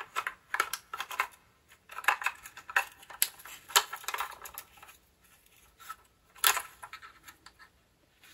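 Scattered small plastic clicks and rattles as an empty battery pack is handled at a portable cassette tape recorder, with sharper clicks a little before four seconds and about six and a half seconds in.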